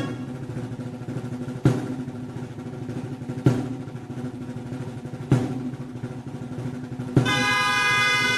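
A festival drum beating slowly, four single strokes about two seconds apart, while the reed pipes (gralles) rest. Near the end the gralles come back in together on a loud held chord.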